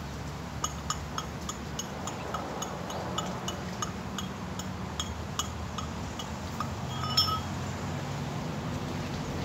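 Light sharp clicks, about two to three a second, with one brief ringing clink about seven seconds in, over a steady low hum.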